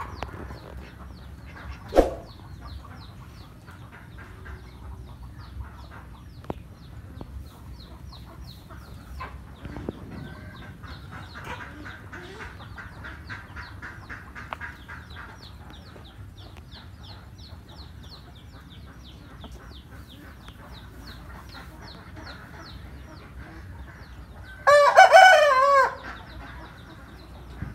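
A rooster crows once, loudly, about 25 seconds in, the call lasting just over a second. Before it there is a short sharp sound about 2 seconds in, and a steady run of quick, high chirps throughout.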